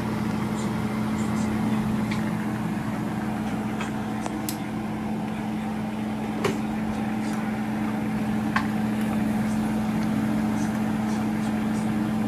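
A steady machine hum with a few faint, short clicks scattered through it.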